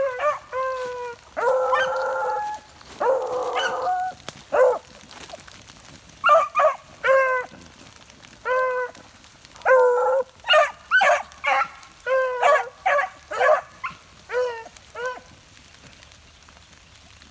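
A pack of beagles barking: a long run of short yelps that fall in pitch, with two longer, drawn-out bays about two and three and a half seconds in.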